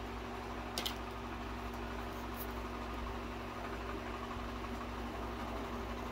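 Steady low background hum, with a pair of small sharp clicks about a second in and a few fainter ticks after, from a small plastic jar of acrylic powder and its lid being handled on a desk.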